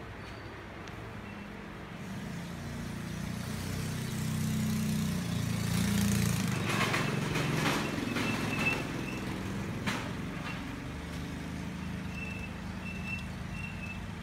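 Steady low machine hum that swells in the middle. Over it, scraping and knocking as a heavy log is pressed and shifted onto a wood lathe's spur drive centre, with a sharp knock about ten seconds in.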